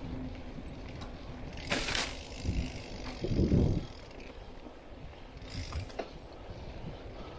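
Giant Trance mountain bike on a dirt trail: the rear hub's freewheel ratchet clicking while it coasts, with knocks from the bike over rough ground. The loudest is a low thump about three and a half seconds in, and there are two short hissing rushes, around two seconds in and near six seconds.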